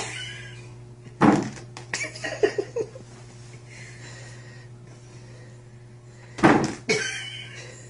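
Loud thumps, about a second in and again near the end, with a short run of smaller knocks and rattles between: a cat bumping about inside a clear plastic toy box.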